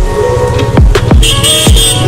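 Background music with a steady electronic beat: a deep kick drum about twice a second under held synth notes.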